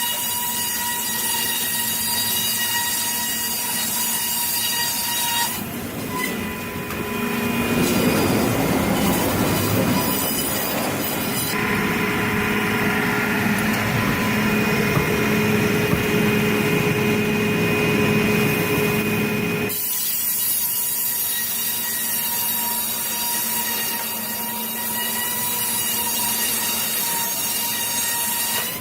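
Sawmill machinery running with a steady high metallic whine over the noise of cutting. The sound changes abruptly several times, as one clip cuts to the next.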